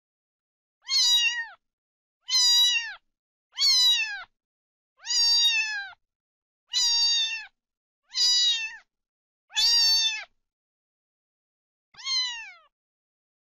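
Domestic cat meowing over and over: eight short meows, roughly one every second or so, each dropping in pitch at its tail.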